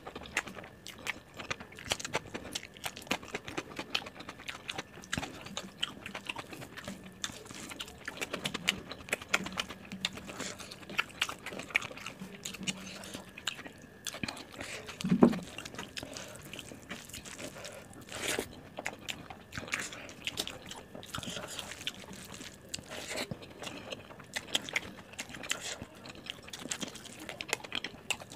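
Close-up chewing and wet mouth sounds of someone eating rice and curry by hand: a steady run of small smacks and clicks. A single low thump about halfway through is the loudest sound.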